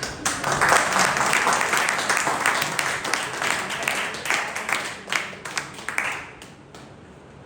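Theatre audience applauding, a burst of many hands clapping that dies away about six seconds in.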